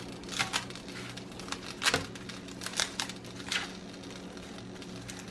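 Flaky pastry crust crinkling and crackling as it is handled, in several short rustles over a faint steady hum.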